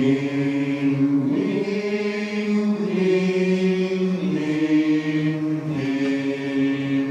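Barbershop chorus singing sustained a cappella chords in a tuning warm-up. The voices hold each chord for about a second and a half, then move together to the next.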